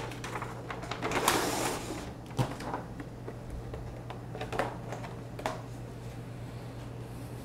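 Paper packaging lid rustling as it is pulled off a sterile kit's plastic tray, then a few light clicks and taps of the clear plastic tray being handled, over a steady low hum.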